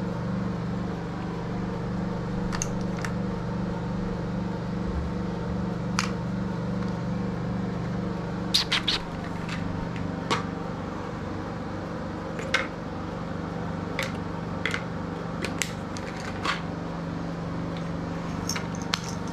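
Scattered small clicks and taps from plastic pill organizer lids and pills being handled, over a steady low electrical hum.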